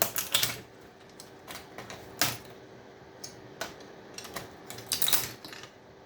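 Irregular sharp clicks and clacks as components are pried and snapped off a TV power circuit board and handled, a few louder snaps among lighter ticks.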